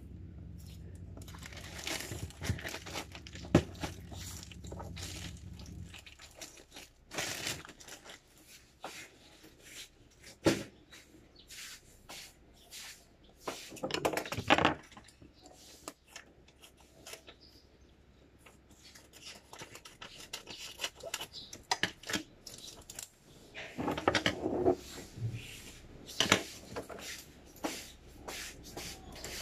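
Irregular handling sounds: knocks, clicks and crinkling or tearing of packaging, with a few sharper knocks in between. A low hum stops about six seconds in.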